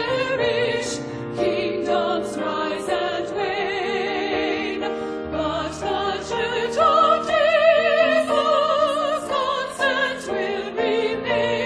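Sacred music sung in a classical, operatic style: sustained notes with strong vibrato, moving from note to note about once a second.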